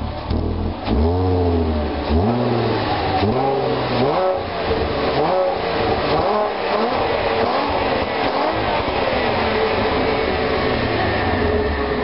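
Stock Volkswagen Golf Mk4 V6 4motion's VR6 engine, on its standard exhaust, blipped from idle in a series of quick revs, about one a second, each rising and falling. After about nine seconds it settles into a steady note.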